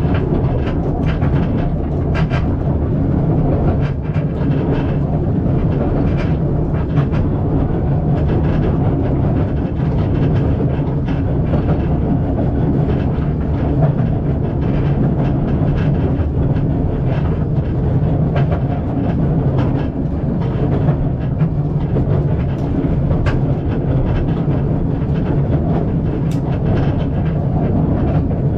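Narrow-gauge railway carriage running along the track: a steady low rumble with scattered sharp clicks and knocks from the wheels and running gear.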